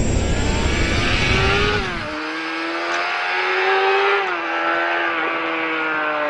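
Sport motorcycle engine accelerating hard, its pitch climbing and dropping back about two and four seconds in as it shifts up through the gears. For the first two seconds it sits under a heavy wind-like rumble.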